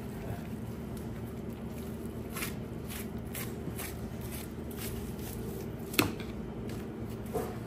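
Knife slicing and gloved hands pulling and handling raw beef on a cutting board, with soft wet squishing and scattered light ticks over a steady low hum. A sharp knock about six seconds in is the loudest sound, with a smaller one near the end.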